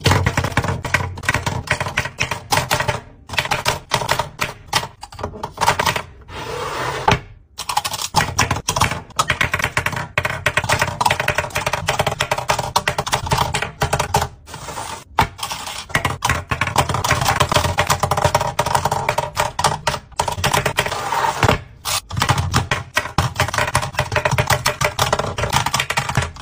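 Lipstick and lip gloss tubes clicking and clattering against a clear acrylic organizer as they are set into its compartments. The taps come in quick, dense runs with a few brief pauses.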